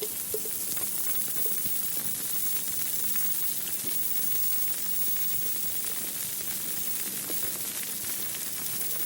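Steady sizzling hiss with a fine crackle, even in level throughout.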